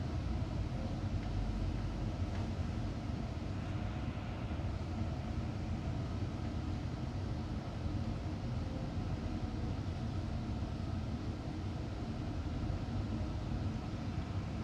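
Interior noise of a moving Volvo B9TL double-decker bus, heard from the upper deck: a steady low drone from its rear-mounted six-cylinder diesel engine, mixed with road rumble.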